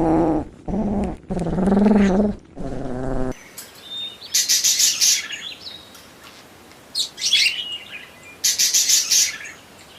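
Three or four short, pitched animal calls, then an abrupt cut about three seconds in to small birds chirping in three quick bursts of high tweets.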